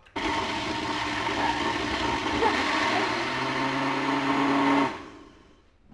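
Electric blender with a small mini-blender cup pressed onto its base, motor running steadily for almost five seconds as it blends mango, then switched off and spinning down near the end.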